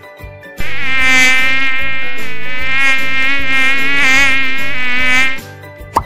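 Mosquito wing whine: a loud, steady buzz with a slight waver in pitch. It starts about half a second in and stops after about five seconds.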